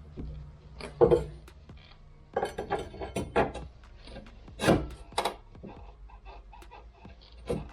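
Irregular knocks, clanks and rubbing from metal car parts being handled and moved, heard as a scatter of short sharp hits with the loudest just past the middle.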